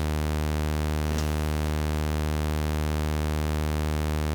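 DIY modular synthesizer VCO holding one steady low tone rich in overtones, its pitch unmodulated, with a faint click about a second in.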